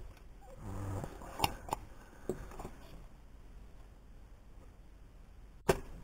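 Sharp clicks and taps of tools at a workbench during desoldering of a remote control's circuit board, the loudest snap near the end. A short low hum about a second in.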